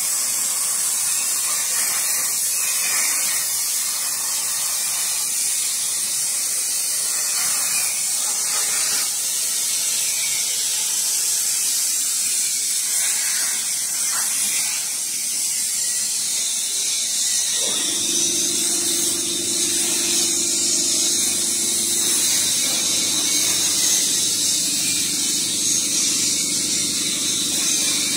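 CNC plasma cutter torch cutting steel plate, a steady loud hiss. About two-thirds of the way through, a low steady hum joins it.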